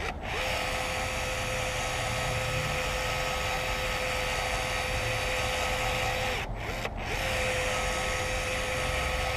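Electric caulking gun motor whirring steadily as it pushes out a bead of windshield urethane. It stops briefly twice, at the start and about six and a half seconds in, and spins back up each time.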